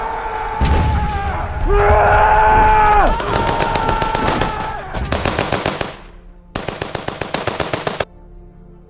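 Men yelling a long charge cry, two held shouts that fall away at their ends. Then rapid machine-gun fire in long bursts that cuts off sharply about eight seconds in.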